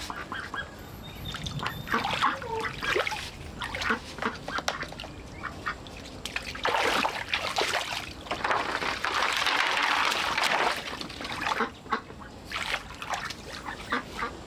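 Farm poultry calling over and over in short, honking calls, with a rush of noise lasting about two seconds just past the middle.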